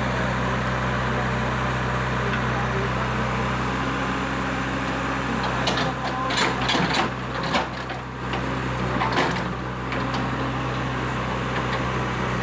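Excavator's diesel engine running steadily while it digs footing pits. About halfway through come a few seconds of sharp knocks and scraping clatter.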